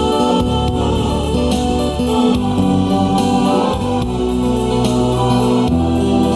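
Music: a slow ballad carried by sustained organ-like keyboard chords, with a wavering melody line over them in the first couple of seconds.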